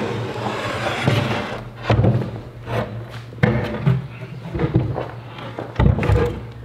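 Plywood panels being handled and shifted, giving several hollow wooden knocks and scrapes, the loudest near the end.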